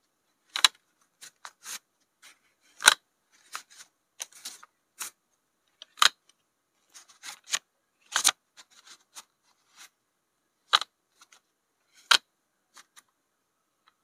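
Paper rupiah banknotes handled and sorted by hand: short crisp rustles and flicks of the notes, with several louder sharp clicks among them, coming irregularly with brief quiet gaps between.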